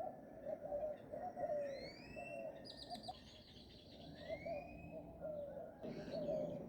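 Several wild birds calling in a dawn chorus: a low, warbling call repeated over and over, with rising whistled notes and a fast, high trill from about a third of the way in to past halfway.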